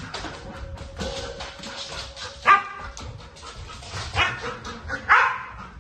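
A protection-trained dog barking while it searches the house: three short, loud barks, the first about two and a half seconds in and two more about a second apart near the end, over scuffling on the floor.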